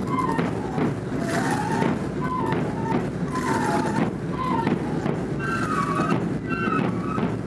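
Traditional El Hierro procession music: a wooden pito flute playing a short, repeating melody over drumming and clicking castanets, with a crowd talking underneath. The flute's phrases go higher in the second half.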